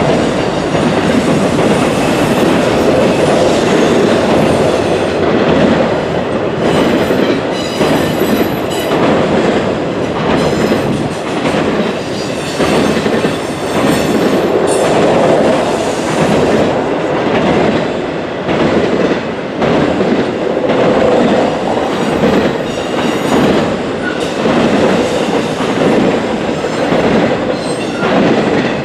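Double-stack intermodal freight train rolling across a steel girder bridge: a steady, loud rumble of cars and wheels with repeated sharp clicks, the loudness swelling and dipping as the cars pass.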